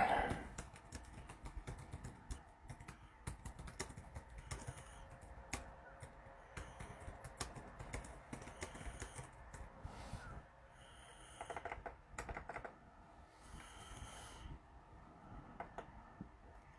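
Faint typing on a computer keyboard: scattered, irregular key clicks, with a few short soft hisses in between.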